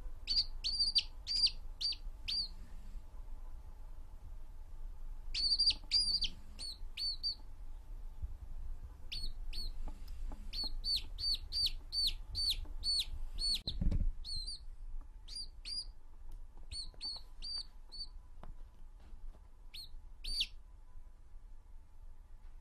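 A baby chick peeping: runs of short, high, downward-sliding peeps, about five runs with pauses between them, the longest run coming about nine seconds in. A brief dull thump sounds about 14 seconds in.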